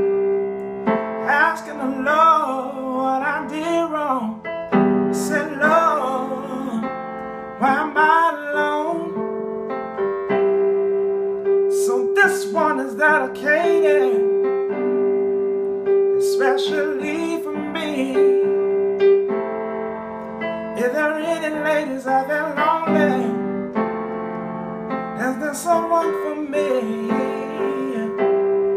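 A man singing old-school soul blues, accompanying himself on a portable electronic keyboard in a piano voice. Held chords sound under his sung phrases, which come in lines with short breaks between them.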